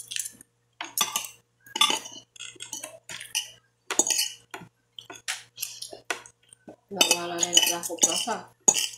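Metal spoon and fork scraping and clinking against a plate of rice in short, irregular strokes as food is scooped up.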